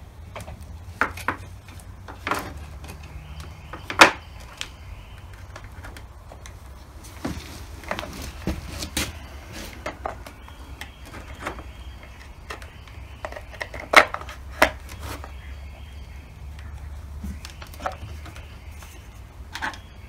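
Saw chain links clicking and rattling against the bar and sprocket cover as a new titanium chain is fitted on a chainsaw by hand, with a few sharper metal knocks, the loudest about four seconds in and again near fourteen seconds. A steady low hum runs underneath.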